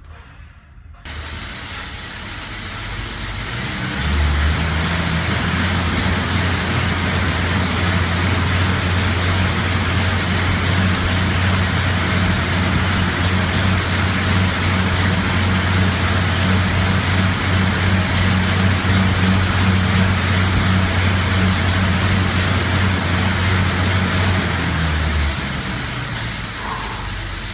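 Air bike's fan whooshing as it is pedalled flat out in a roughly 20-second sprint interval. Rushing air and a steady low hum start about a second in, build over the next few seconds, hold steady, then die away as the fan spins down near the end.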